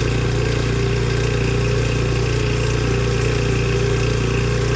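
Small outboard motor on an inflatable boat running steadily at idle, at slow trolling speed.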